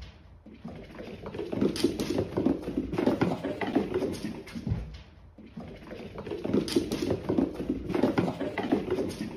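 Cats' paws pattering and thudding on a laminate floor as two cats run and tussle, in two busy stretches with short lulls near the start and about halfway through.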